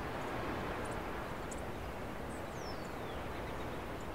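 Steady outdoor background noise with faint, scattered bird chirps and one falling whistled note about two and a half seconds in.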